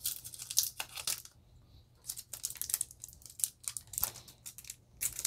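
Foil wrapper of a Yu-Gi-Oh Toon Chaos booster pack being torn open by hand, crinkling and ripping in short bursts with a brief pause between one and two seconds in. The wrapper does not tear open cleanly.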